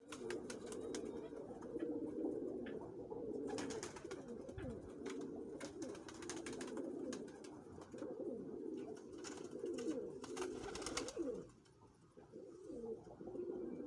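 Many doves cooing at once, their low coos overlapping continuously, with scattered sharp clicks. The cooing dips briefly about three-quarters of the way through.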